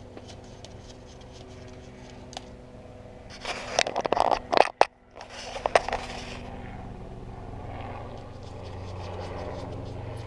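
Rusty wire condenser fan grille, with the fan motor attached, being handled and shifted against the condenser housing: a burst of scraping and rattling a few seconds long about halfway through, over a steady low hum.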